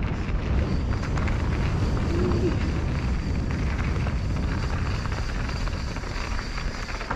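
Mountain bike descending a dirt downhill trail: wind rumbling on the microphone over tyre noise, with frequent small clicks and rattles from the bike over rough ground.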